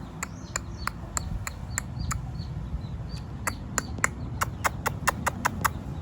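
A run of sharp clicks or taps, about three a second, that pauses and then comes back faster, about five a second, before stopping, over a steady low rumble.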